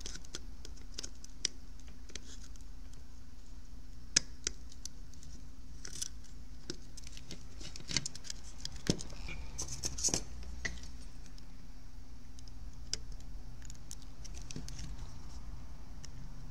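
Scattered small clicks and taps of fingers and tweezers working a circuit board and its wires into a plastic headphone earcup, the sharpest about 4, 9 and 10 seconds in, over a steady low hum.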